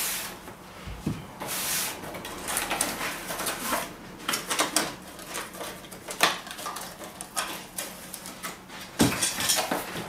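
Flat-pack drawer panels and cardboard packaging being handled: scattered light knocks and taps, with two rushing rustles in the first second and a half and a firmer knock about nine seconds in.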